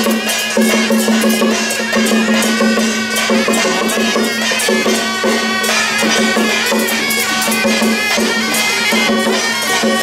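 Loud traditional Taiwanese temple-procession music: a shrill reed-horn melody over a steady drone, with dense fast cymbal and drum strokes.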